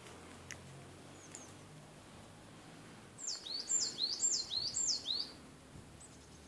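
A small songbird whistling loudly: a phrase of five or six repeated high notes, each sliding down and then back up, a little after three seconds in, with two faint chirps before it.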